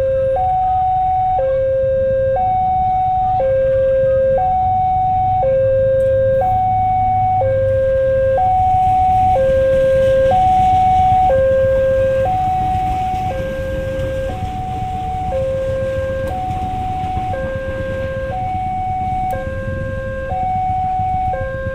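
Two-tone electronic warning alarm, a high and a low tone alternating about once a second each, over a low rumble.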